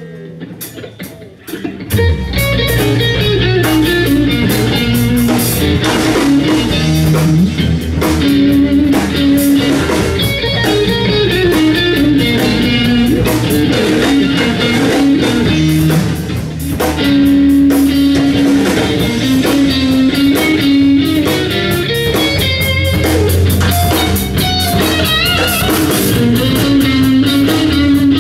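Live rock band playing: electric guitar, bass guitar and drum kit. After a quieter start the full band comes in loudly about two seconds in and plays on steadily.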